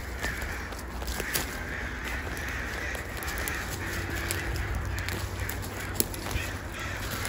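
Several crows cawing over and over, an agitated mobbing commotion, with scattered clicks of footsteps on the forest floor.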